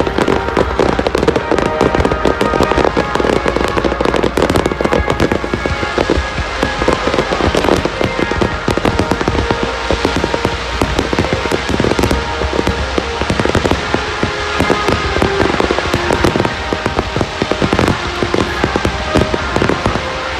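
Aerial fireworks bursting in a rapid, dense barrage of bangs and crackles, with music playing alongside.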